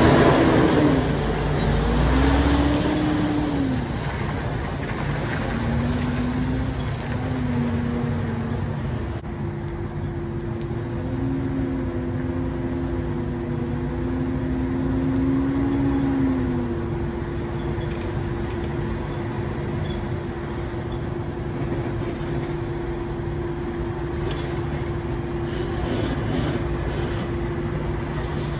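Diesel semi-truck pulling away, its engine pitch rising and falling several times as it shifts up through the gears, then settling into a steady drone.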